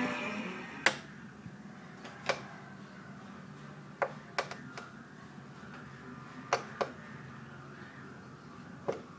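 Front-panel push buttons of a CRT television clicking as they are pressed, about eight sharp single clicks at irregular intervals, the first the loudest. Background music fades out just at the start.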